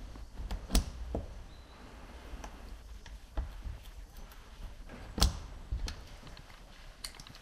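Snap-off utility knife blade scoring grooves into dry cane: scattered small scrapes and clicks, with two sharper clicks, one a little under a second in and one about five seconds in.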